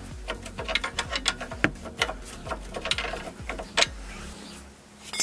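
Ratcheting box-end wrench clicking as it backs off a sway bar link nut on a front strut: rapid, uneven clicks, about four a second, dying away near the end. The link stud holds without spinning, so the nut comes loose.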